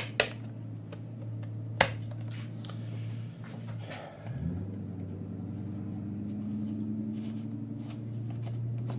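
A few sharp clicks in the first two seconds, from drill bits being handled and changed, over a steady low motor hum. The hum dips and comes back with a short rising slide about four seconds in.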